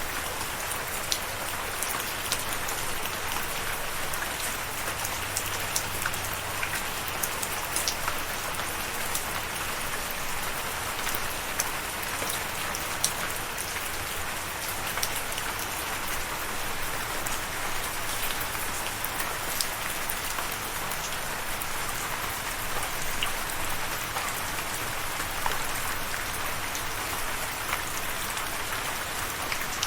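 Steady rain falling, a dense even hiss with many individual drops ticking sharply on a surface.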